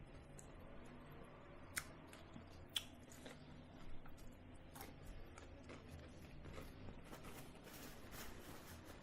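Faint eating sounds: chewing with scattered sharp clicks and crunches, two louder ones around two and three seconds in, over a low steady hum.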